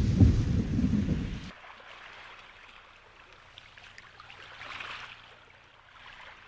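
Sea sound effects: a loud, low rush of waves that cuts off suddenly about a second and a half in, then faint trickling and lapping water with a brief swell about five seconds in.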